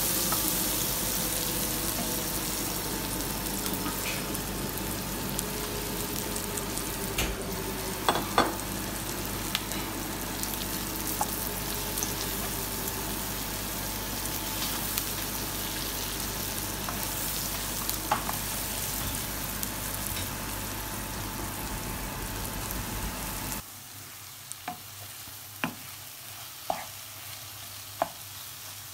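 Brinjal (eggplant) and onions frying in a nonstick pan: a steady sizzle, with a spatula stirring and now and then knocking against the pan. About 23 seconds in, the sizzle drops suddenly to a much quieter level, and the spatula knocks on the pan several more times as the mixture is mashed.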